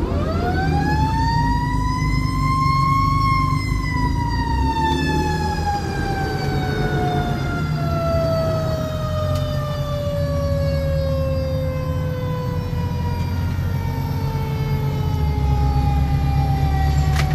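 Federal Q mechanical siren on a fire truck, heard from inside the cab. It winds up over about three seconds to a high wail, then slowly winds down through the rest. The truck's Detroit Diesel DD13 engine runs underneath and grows louder near the end.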